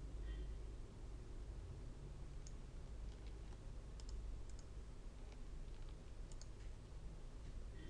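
Faint computer mouse clicks, a few single ones and a couple of quick pairs, over a low steady hum.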